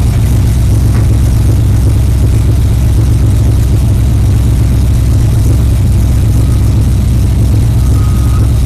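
Stock car's V8 engine idling, a loud steady low rumble heard from inside the cabin.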